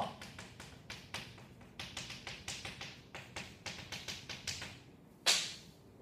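Chalk tapping and scraping on a blackboard as characters are written, a quick run of short strokes, with one louder, longer scrape about five seconds in.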